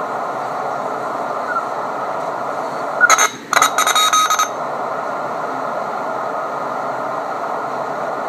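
Elecraft KX3 transceiver's built-in speaker hissing with band noise on 40 m LSB, with no station coming through. About three seconds in, a louder, harsher crackle with a few steady tones in it breaks in for about a second and a half, then the plain hiss returns.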